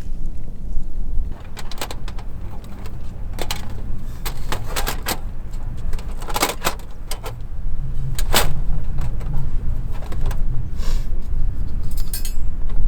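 A run of scattered sharp clicks, knocks and clinks, a dozen or so at uneven intervals, over a steady low rumble.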